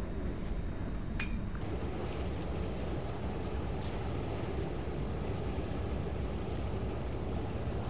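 Boat engine rumbling steadily out on the canal, with a faint sharp click about a second in.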